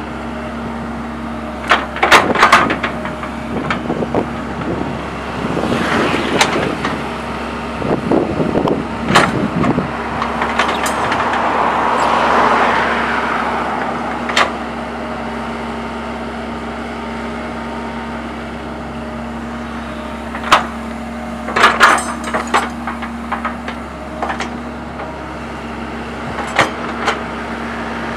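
Sumitomo hydraulic excavator's diesel engine running steadily under digging load. Sharp clanks and knocks in short clusters come from the bucket and arm linkage as it scoops and dumps soil in a ditch.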